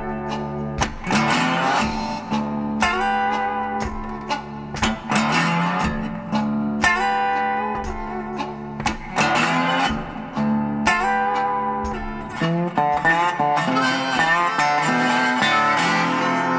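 Background music led by a plucked guitar, with frequent picked notes over a held low drone.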